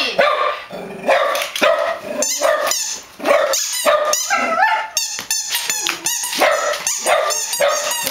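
Dogs barking and yipping in a rapid string of short, high calls, one after another.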